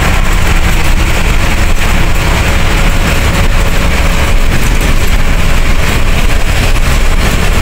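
Inside a moving NWKRTC bus: loud, steady engine and road rumble.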